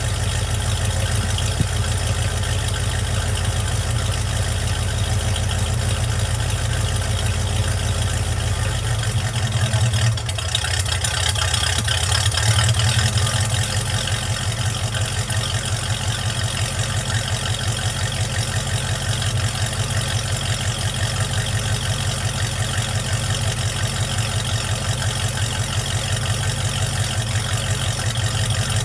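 Project truck's engine idling warm, its vacuum leak fixed. The running changes briefly about ten seconds in, with a small lift in level, then settles back to an even idle.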